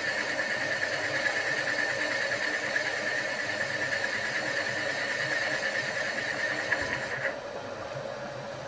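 Milling machine spindle turning slowly with a boring head, cutting a tube hole in a duplex stainless steel boiler tube plate: a steady machining whine over motor hum. It is run slow so the duplex stainless does not work-harden. The cutting whine drops away about seven seconds in.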